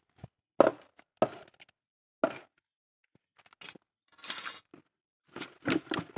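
Several sharp knocks and crackles from a clear plastic bottle being struck with a metal snake hook and then handled by its cap, with a brief rustle about four seconds in.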